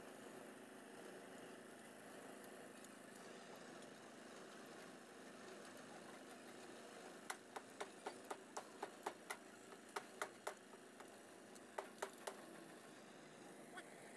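Sharp metallic clinks of hand tools and steel formwork plates knocking together as column shuttering is fitted and clamped, about fifteen in quick runs over the middle of the clip, roughly four a second. A faint steady hum lies underneath.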